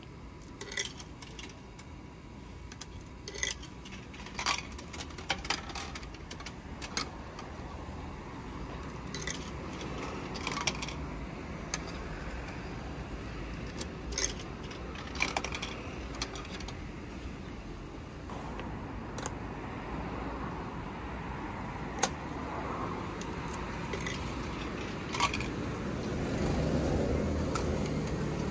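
Coins clinking as they are pushed one by one into a vending machine's coin slot and drop through the coin mechanism: a scattered run of short, sharp metallic clicks and clatters. A passing car swells up near the end.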